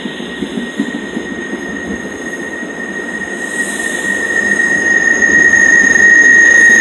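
Greater Anglia passenger coaches rolling past along the platform with a low rumble. Over it is a steady, high-pitched squeal from the wheels that grows louder over the last few seconds.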